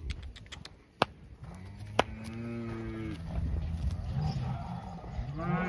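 Beef cattle mooing: a long low moo starting about a second and a half in, followed by more overlapping calls and a rising call near the end. Two sharp clicks about a second apart cut through near the start.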